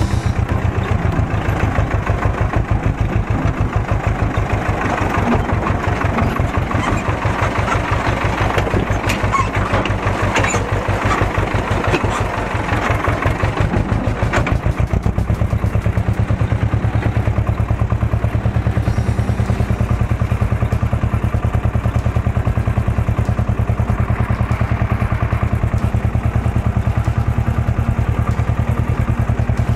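Ursus C-330 tractor's two-cylinder air-cooled diesel running steadily while driving, a fast, even clatter heard from inside the cab. About halfway through, the higher rattle eases and the engine note settles.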